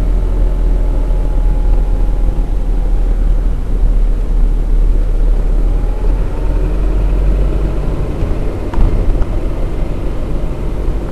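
Steady low rumble of a moving vehicle, with a single short knock about nine seconds in.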